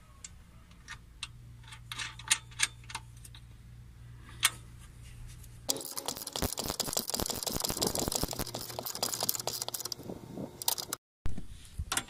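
Small metal clicks and clinks as nuts and bolts are fitted by hand to a seat swivel base. A little over halfway it turns into a dense run of rapid clicking and rattling, which cuts off abruptly near the end.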